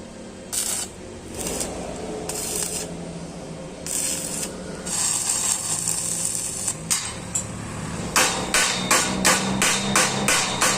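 Hammer striking metal: a few short scraping sounds, then from about eight seconds in a fast, even run of ringing blows, about four a second.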